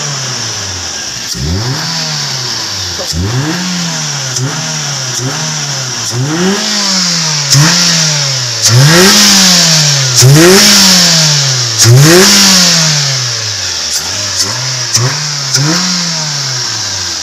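Toyota Avanza petrol engine free-revving in repeated throttle blips, about one a second, each rising and falling smoothly, the highest and loudest in the middle. The blips test the throttle for the stumbling ('mbrebet') the car suffers, which the mechanic puts down to dirty crank and cam position sensors.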